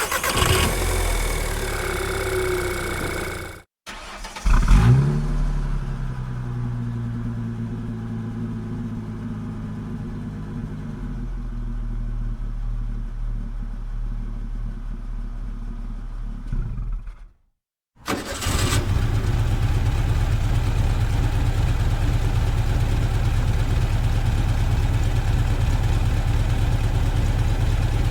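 A series of car engine clips. About four and a half seconds in, an engine starts with a sharp rise and settles into a steady idle. It cuts off, and from about eighteen seconds a second, rougher engine idles steadily.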